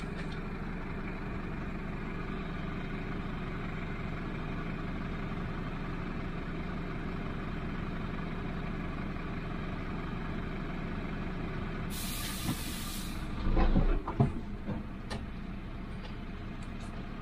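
Truck diesel engine idling steadily. About twelve seconds in comes a one-second hiss of compressed air from the air brake system, followed by a few knocks.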